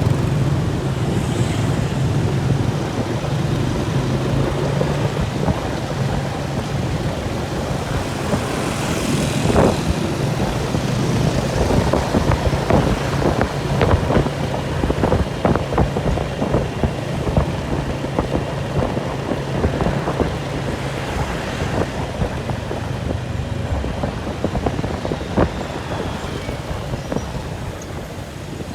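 An engine running steadily at a constant low pitch, with scattered knocks and rattles over the middle stretch.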